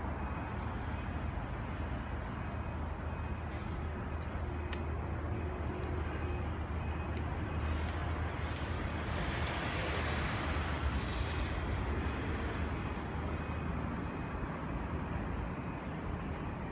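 Steady city background noise, the low rumble of distant traffic, swelling about halfway through as something louder passes, then settling back.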